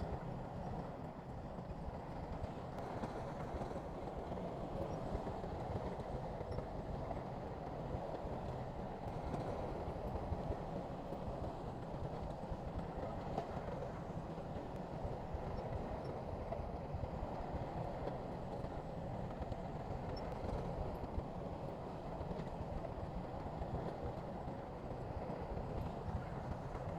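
SHANTUI crawler bulldozer working: its diesel engine runs steadily under a dense, continuous clatter of steel tracks.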